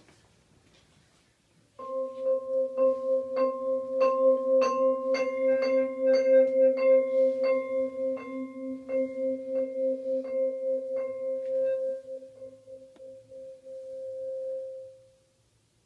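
Musser vibraphone struck with yarn mallets, starting about two seconds in: a low note and its octave ring on steadily under a quick run of strikes on higher bars. The strikes stop a few seconds before the end and the held ringing fades out.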